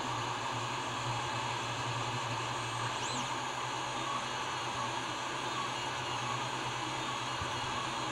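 Creality 3D printer running mid-print: a steady fan whir with a low motor hum.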